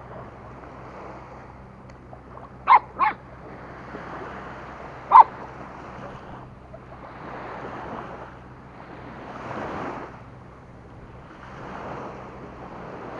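Puppies playing, giving three short, sharp barks: two in quick succession about three seconds in, then a louder one about two seconds later. Surf washes in and out behind them, swelling and fading every few seconds.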